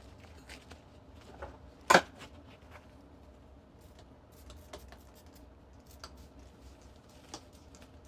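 Handling noises while exhaust wrap is wound onto a diesel heater's exhaust pipe: scattered light clicks and rustles, with one sharp knock about two seconds in.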